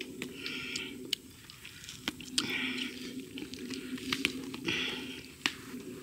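Wet squishing and tearing of meat as a monkey carcass is bitten and pulled apart with the teeth, in short bouts with scattered sharp clicks, over a steady low hum.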